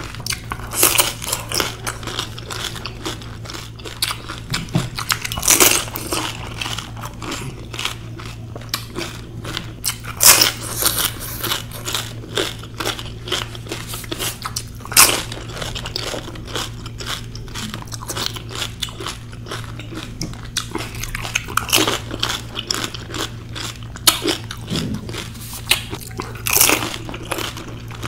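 Close-miked eating of pani puri: crisp fried puri shells cracking and crunching in the mouth, with chewing in between, in irregular spurts and a louder crunch every few seconds. A steady low hum runs underneath.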